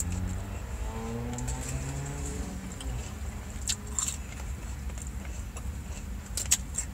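Eating sounds: a plastic fork clicking against a plastic salad container and chewing, with a few sharp clicks about midway and near the end, over a low steady rumble. A faint hum of voice sounds in the first couple of seconds.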